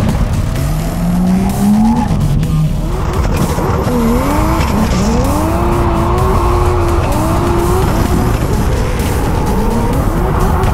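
Mazda RX-7 drift car's engine revving, its pitch rising and falling again and again as the car slides, with tyres squealing and skidding.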